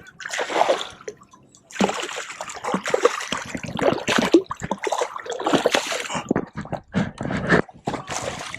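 A hooked redfish (red drum) thrashing and splashing at the water's surface as it is landed, in irregular bursts with a short lull about a second in.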